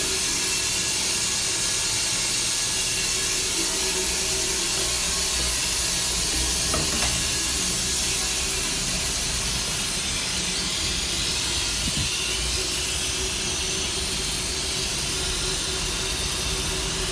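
Water running continuously somewhere in the building, heard as a loud, steady hiss that eases off slightly about halfway through.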